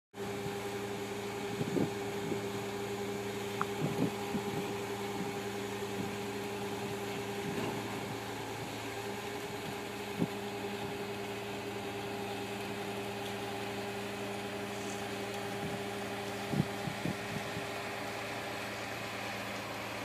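Truck-mounted concrete boom pump running steadily as it pumps concrete, its diesel engine held at an even speed with a steady hum, and a few sharp knocks now and then.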